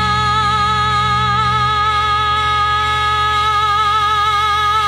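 Music: one long held note with a slow vibrato over a low sustained drone, the bass shifting slightly about two seconds in.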